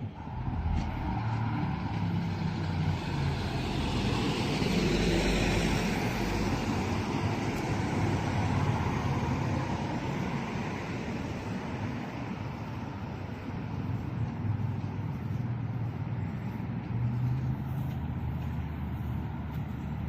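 Road traffic: motor vehicles running and passing, with the loudest one going by about five seconds in.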